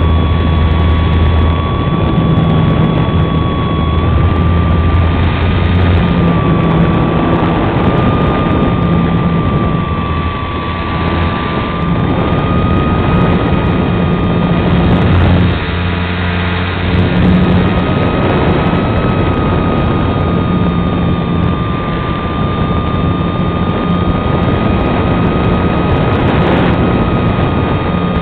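An electric RC model aircraft's 480-size motor and propeller running steadily, heard from on board the model. It makes a constant high whine that wavers a little in pitch, over a heavy rush of wind from the airflow.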